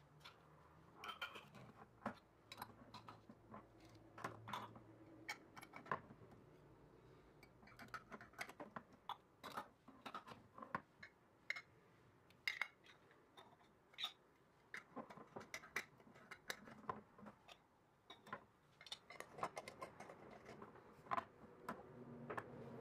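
Lids being set and screwed onto glass jars: scattered light clicks and taps of lid on glass, with jars knocking on a countertop.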